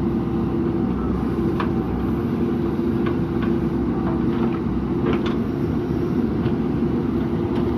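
JCB backhoe loader's diesel engine running steadily while it digs a drain, with a few light knocks scattered through.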